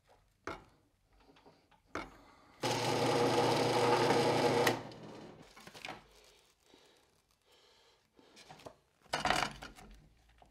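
Power drill running steadily for about two seconds as it bores a hole through plywood, then winding down. A few light clicks before it and a short noisy burst near the end.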